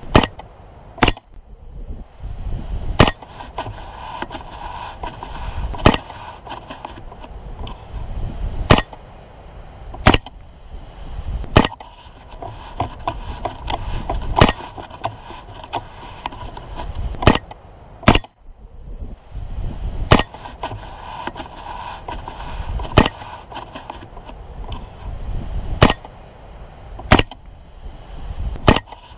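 Rifle shots fired one after another at an uneven pace, about one every one to three seconds, some fifteen in all. Many are followed by the short high ring of a bullet striking a steel target.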